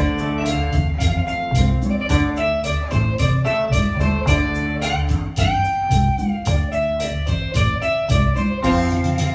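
Instrumental passage of a Thai song: a quick plucked-string melody over a steady bass and drum beat, with one long held note about halfway through.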